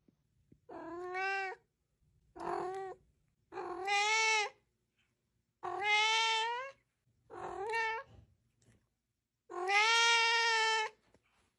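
A kitten meowing six times in a row, each meow about a second long with short pauses between; the last meow, near the end, is the longest.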